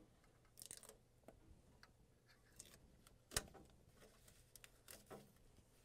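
Faint handling of a laser printer's paper tray: scattered light clicks and brief plastic rustles as packing material is lifted out, with one sharper click a little past halfway.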